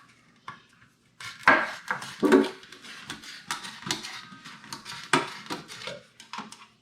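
Metal clinking and knocking as a one-gallon paint can is opened and handled, a tool striking and prying at the can's metal rim in a quick irregular series.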